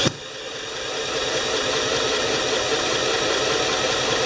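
A power drill spins the Honda HRA214 mower's engine over steadily for several seconds. The engine turns over without catching.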